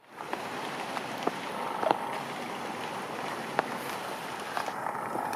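Steady rain falling on wet ground and leaves, with a sharper single drop hit every second or so.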